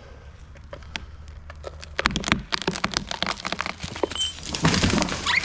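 Tree trunk's hinge wood cracking and snapping as the cut tree tips over: a dense, irregular run of sharp cracks beginning about two seconds in and growing louder near the end.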